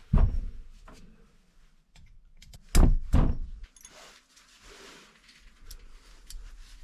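Dull knocks of hand tools working on a motorcycle cylinder head: one right at the start and two close together about three seconds in, with faint scrapes and clicks between them.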